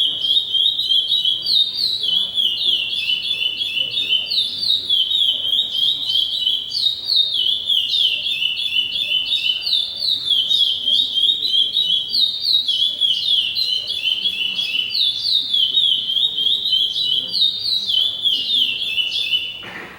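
A songbird singing one long unbroken song of rapid, repeated downslurred notes, which stops abruptly near the end.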